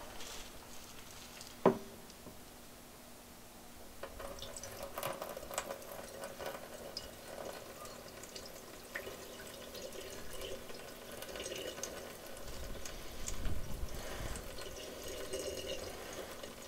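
Water poured slowly from a plastic cup into the liquids drain of an Air Head composting toilet bowl, trickling and dripping as it runs away: a leak test of the liquids plumbing. A single sharp click about two seconds in, and a faint steady hum underneath.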